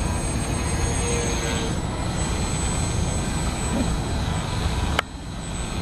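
Wind rumbling on the microphone over the faint, steady high whine of an electric RC airplane's motor and propeller in flight. A sharp click comes about five seconds in, and after it the sound is quieter.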